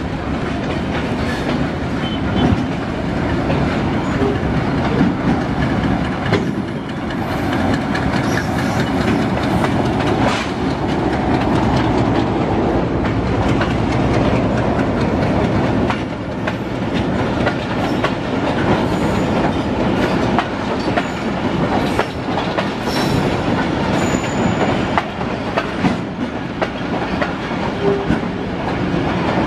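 Passenger train passing close below, the coaches' wheels running over the rail joints in a steady clickety-clack over the rumble of the moving cars.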